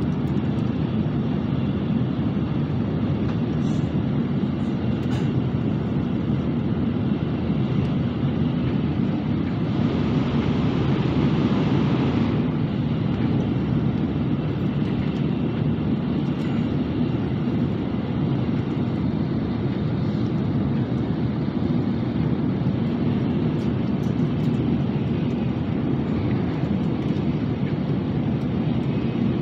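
Steady rumble of a Nozomi Shinkansen bullet train at high speed, heard from inside the passenger cabin. About ten seconds in it turns louder and hissier for a couple of seconds, then settles back.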